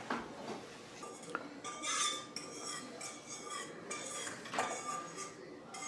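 Metal kitchenware clinking and scraping irregularly: a stainless steel mixing bowl and utensil knocking as egg mixture is scraped out of the bowl into a frying pan.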